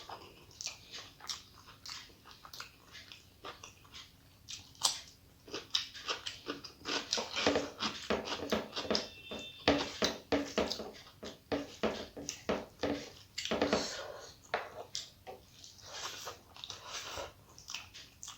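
Close-up eating sounds: wet chewing and lip-smacking of rice and curry eaten by hand, in many short irregular smacks, busiest in the middle.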